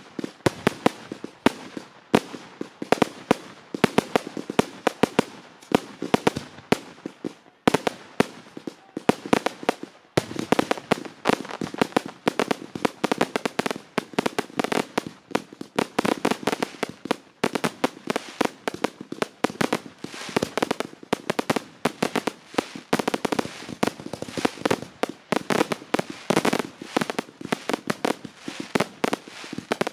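Fireworks display: rapid, continuous crackling and popping from bursting aerial shells and crackling stars. There is a short lull about eight seconds in, and the crackle grows denser after about ten seconds.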